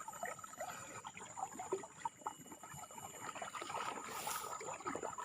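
Faint water trickling and spattering, with many small irregular drips and splashes.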